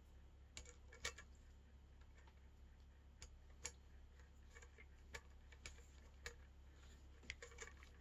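Faint, irregular clicks and light taps of small metal parts being handled: a bicycle headset top cap and its bolt fitted onto the stem.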